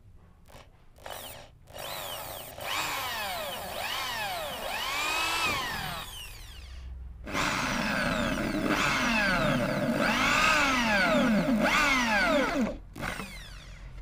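Electric hand drill with a twist bit boring holes through thin brass sheet. Its motor whine sweeps up and down in pitch again and again as the speed changes, in a few short bursts and then two long runs with a brief break between them.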